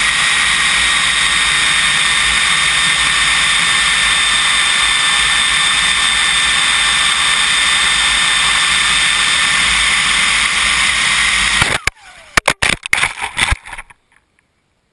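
R/C model jet's turbine engine running steadily with a high whine and rushing air, heard from a GoPro mounted on the wing. About 12 seconds in it breaks off into a burst of sharp cracks and clatter as the plane hits the ground at speed. The owner blames the crash on the plane going into failsafe after the GoPro interfered with the radio link.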